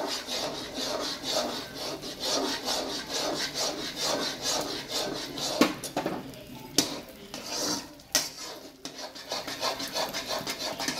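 Metal spatula scraping and stirring a thick, ghee-rich Mysore pak mixture around a kadai in quick repeated strokes, about three a second. A few sharper knocks of the spatula against the pan come around the middle.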